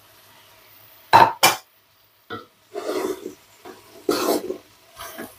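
Chopped vegetables tipped from a plate into a large metal cooking pot of chicken: two sharp knocks about a second in, then a few duller thumps and rustles.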